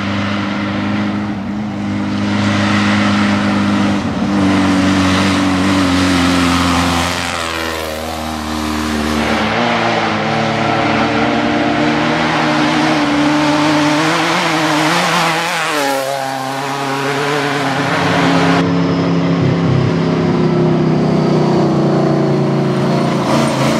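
Off-road race vehicle engines running hard under throttle, the pitch rising and falling as they rev, most clearly about a third of the way in and again past the middle.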